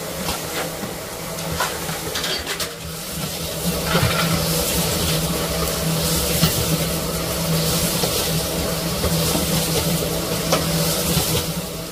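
Food sizzling in a hot pan while being stirred, with occasional scrapes and clicks of the utensil. The sizzle grows louder about three seconds in and eases near the end, over a steady low hum.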